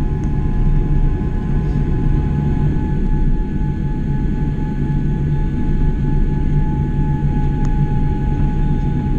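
Cabin noise inside a Boeing 787 Dreamliner taxiing on the ground: a steady, loud low rumble of the moving airliner with a steady engine whine over it.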